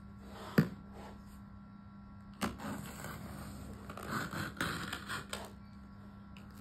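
A cardboard shipping package being handled and cut open: a sharp tap shortly after the start and another about halfway through, then a box cutter scraping and slicing along the packing tape. A steady low electrical hum runs underneath.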